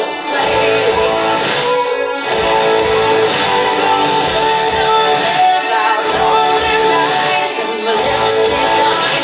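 Instrumental stretch of a pop song: guitar over a steady beat.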